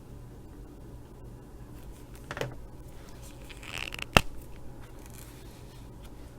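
Alcohol marker being handled while swatching: a short scrape, a scratchy rustle, then one sharp click about four seconds in, the loudest sound, as a marker cap snaps.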